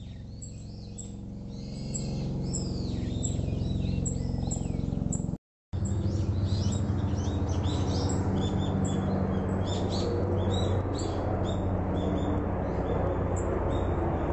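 Helicopter droning steadily, a low hum that grows louder about two seconds in, with small birds chirping repeated high, falling notes above it. The sound cuts out for a moment about five seconds in.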